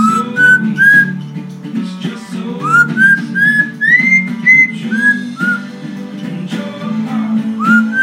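Lilac-crowned Amazon parrot whistling along to a guitar song: a run of short whistled notes, each rising and then held briefly, about two a second, pausing for a couple of seconds near the end before starting again.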